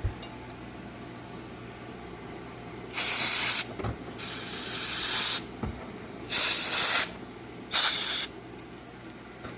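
An aerosol can of carburetor cleaner sprays four bursts onto fuel injectors to clean off gunk. The second spray is the longest.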